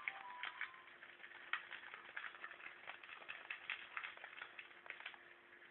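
Lovebird in its cage making rapid, irregular light clicks and taps as it pecks and chews, over a faint steady hum.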